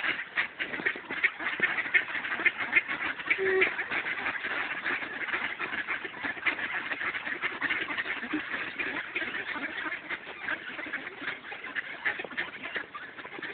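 A flock of ducks quacking, many short calls overlapping without a break.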